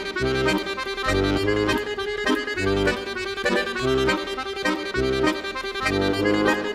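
Lively instrumental background music: held melody notes over a bass that pulses in a regular, bouncing rhythm.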